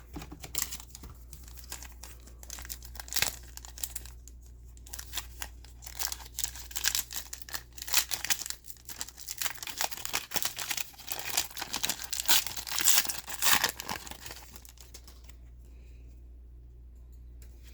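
Plastic trading card pack wrappers being torn open and crinkled by hand, an irregular run of crackling and ripping that dies down near the end.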